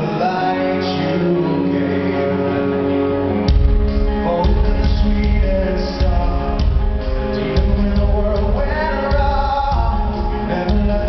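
Live rock band playing a song with a male lead vocal: held chords open it, then the drums and bass come in hard about three and a half seconds in.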